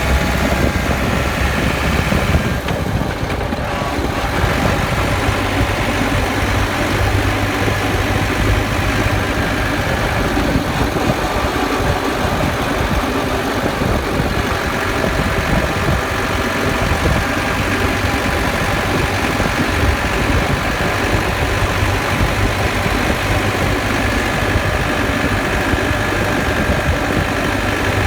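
Land Rover Defender running with a steady mechanical drone, the whine, rattle and grinding that the owner puts down to the differential, a noise that started after the vehicle was lifted.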